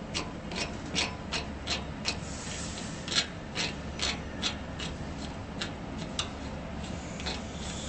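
Plastic parts of a pneumatic air filter-regulator clicking and rubbing as the unit is twisted by hand, a run of short clicks about two or three a second with one sharper click a few seconds in.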